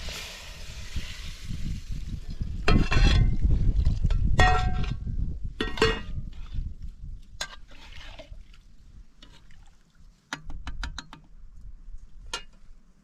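Metal ladle stirring soup in a pot and knocking against the pot and a metal plate, giving sharp clinks with a brief ring every second or two and a quick run of small clicks about ten seconds in, over a low rumble.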